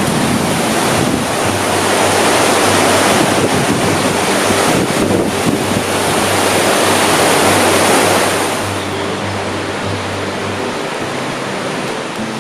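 Sea waves rushing in, with wind buffeting the microphone and music underneath; the surf noise eases off about two-thirds of the way through.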